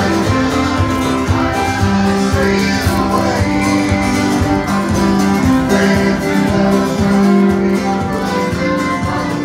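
Small live acoustic band playing country or bluegrass-style music, led by a strummed acoustic guitar with held melody notes over it.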